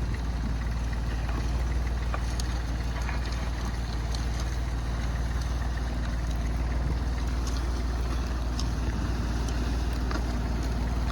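Perkins P3 three-cylinder diesel engine in a 1941 Ford Ferguson 9N tractor running steadily at low revs, with a few faint scattered clicks over the drone.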